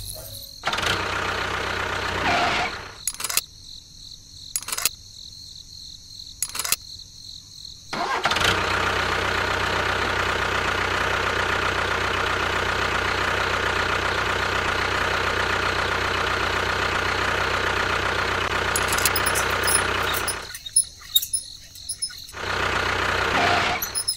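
An engine running steadily for about twelve seconds. Before it come a short burst of running noise and three sharp clicks, and after it the running sound stops, then returns briefly near the end.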